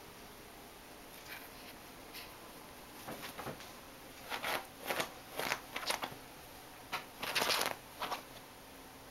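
Bedsheets rustling in a run of short bursts as a pet rabbit hops and shuffles about on the bed. The rustles start about three seconds in and get busier, with the loudest just before the end.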